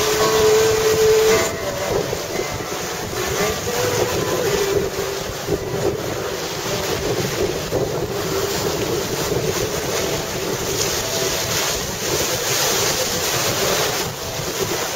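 Sea waves breaking and washing over a rocky shore, with wind buffeting the microphone. A faint wavering pitched sound runs underneath.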